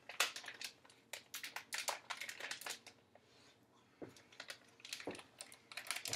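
Plastic food package crinkling in the hands in bursts of short crackles, pausing briefly about three seconds in.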